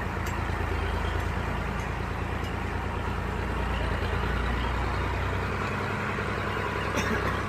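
A large engine idling steadily with a low, even drone.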